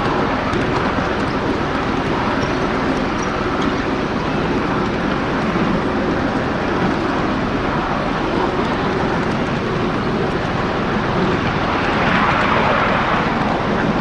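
Ride-on miniature train running along its track: a steady rumble and clatter of the wheels and cars. It grows louder and brighter about twelve seconds in.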